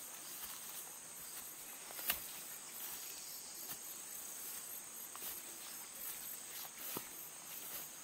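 Insects chirring steadily at a high pitch, with two short clicks, about two seconds in and near the end.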